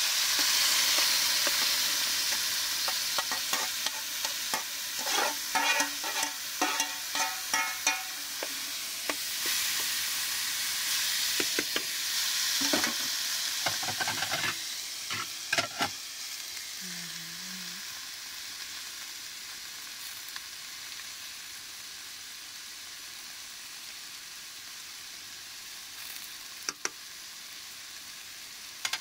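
A steady high hiss with irregular scrapes and clinks through the first half, then a fainter steady hiss with a couple of sharp clicks near the end.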